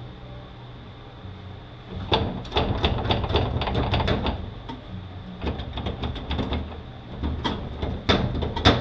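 Steel gearbox parts of a manual transmission clicking and knocking as they are handled and worked loose. The irregular run of sharp metallic clicks starts about two seconds in, over a low steady hum.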